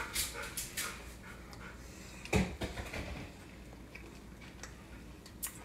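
A dog panting rapidly for about a second and a half, then a single sharp knock a little over two seconds in, followed by a few faint clicks.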